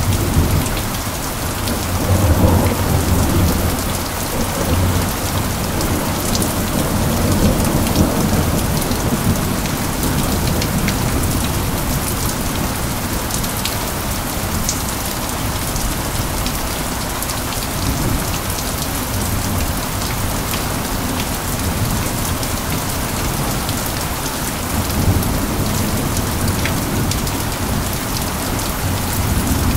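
Steady rain falling with an even hiss, with low rumbles of thunder swelling in the first few seconds and again several times later.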